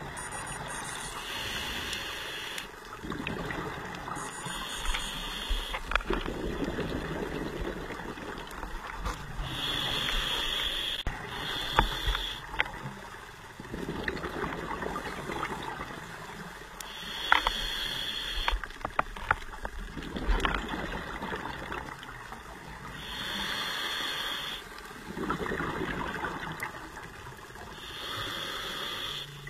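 Scuba diver breathing through a regulator underwater: a hissing inhale, then a bubbling exhale, about five breaths in turn, with a few scattered clicks.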